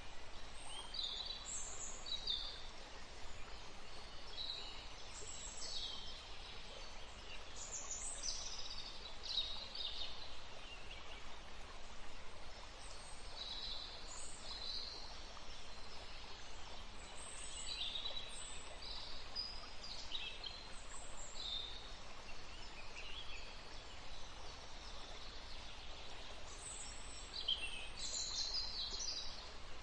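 Wild birds calling and singing: many short, high chirps and trills scattered throughout, over a faint steady background hiss.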